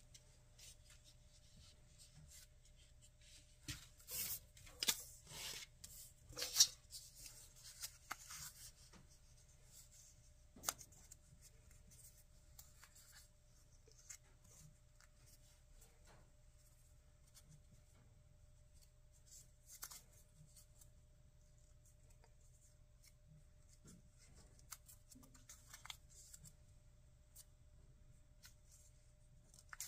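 Small sheet of paper being creased and folded by hand into a 3D origami unit: faint crinkles and rustles, busiest a few seconds in, with one sharp crackle soon after and then scattered soft crackles, over a faint steady hum.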